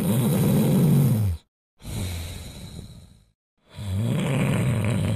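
A sleeping dog snoring: two long, loud snores with a quieter breath between them.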